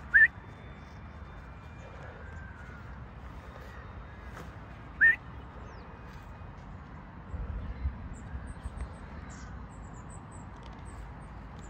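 Two short rising whistles about five seconds apart: a falconer's recall whistle, calling a hawk down from a tree to the fist.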